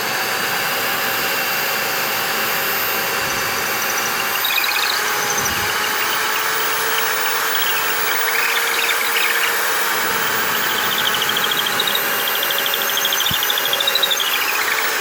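Electric drill running steadily, boring down into a wooden log with a long half-inch wood bit. The motor whine winds down near the end as the drill stops.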